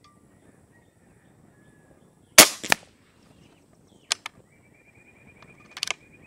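A single shot from the Umarex Gauntlet .25 regulated PCP air rifle: one sharp crack about two and a half seconds in, with a brief ringing tail. A few quieter clicks follow over the next few seconds.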